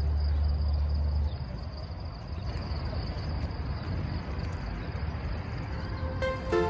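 Background music stops about a second in, leaving steady outdoor background noise with a thin high steady whine. Music starts again near the end.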